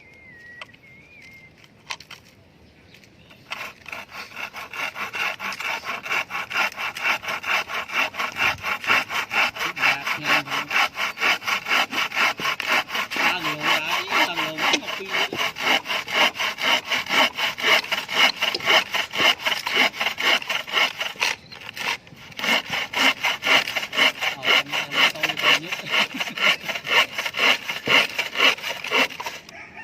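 A hand saw cutting through a wooden formwork board with quick, even back-and-forth strokes. It starts a few seconds in and pauses briefly about two-thirds of the way through.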